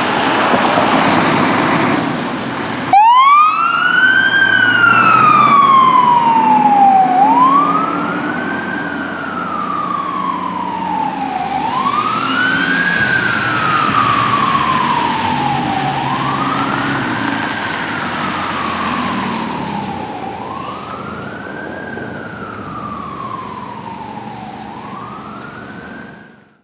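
Fire engine pulling out and responding: about three seconds of heavy engine noise, then its siren wailing in repeated cycles, each climbing quickly and sliding down more slowly, about every four and a half seconds, over the rumble of the engine. The sound fades as the truck moves away.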